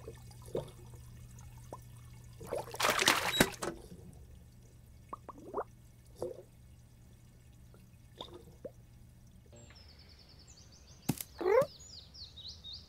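Cartoon water sound effects of a goldfish splashing in its aquarium, with one loud splash about three seconds in and a few short bloops after it. Near the end, high twittering birds, a single knock and a short loud cry.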